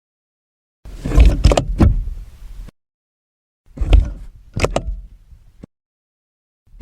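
Car door mechanism heard from inside the car: two short takes, each a cluster of sharp clunks and rattles like a latch working and the door knocking shut.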